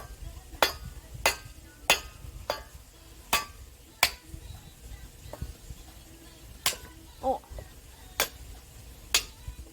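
Axe blows on firewood: a series of sharp knocks, about one every two-thirds of a second at first, then more spaced out.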